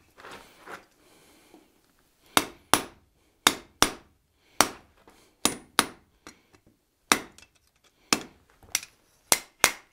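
Hand hammer striking a red-hot steel bar on an anvil while dubbing back the corners of a forged ram's head. Sharp blows in quick pairs, about one pair a second, begin about two seconds in.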